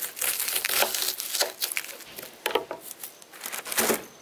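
Kitchen knife slicing through a red onion on a plastic cutting board: a run of crunchy cuts in the first second, then separate knocks of the blade and onion against the board.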